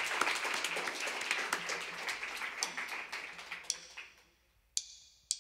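Applause dying away, fading out over the first four seconds. Near the end come two sharp clicks half a second apart, a drummer clicking sticks together to count in the next song.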